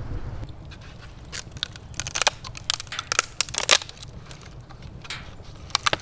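Wood fire crackling and popping in a converted wood-stove sap evaporator: sharp, irregular snaps, clustered in the middle and again near the end.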